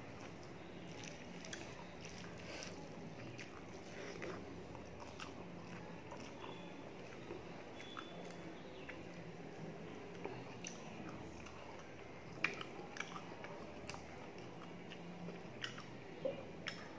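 Close-up mouth sounds of someone eating rice and mutton curry by hand: chewing and lip-smacking with many small wet clicks, a few louder near the end. A faint steady hum lies beneath.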